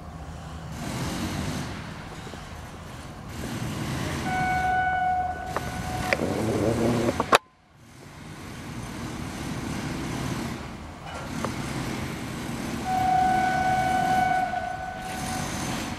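Horn of an approaching WAG9 electric locomotive: a steady blast of about one second some four seconds in, and a longer blast of about two seconds near the end, over a continuous low rumble. A sharp click and a brief dropout about seven seconds in break the sound.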